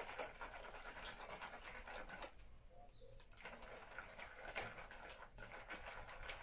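A spoon stirring a thick batter of chopped walnuts, egg and flour in a bowl: irregular light scrapes and clicks of the spoon against the bowl, busier in the first couple of seconds, then sparser.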